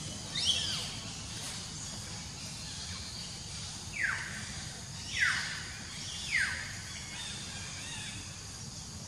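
Four short high animal calls, each sliding steeply down in pitch, the first about half a second in and the other three close together in the middle, over a steady high hum of insects.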